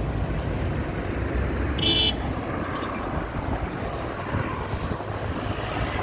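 Steady road traffic noise from passing vehicles, with a brief high-pitched beep about two seconds in.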